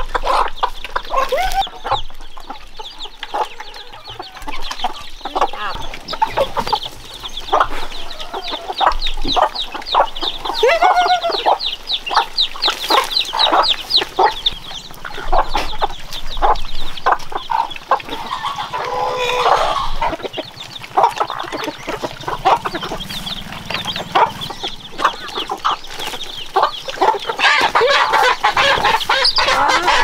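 A flock of free-range chickens clucking and calling as they are fed, with many short clicks throughout. A fast high trill runs for several seconds in the middle.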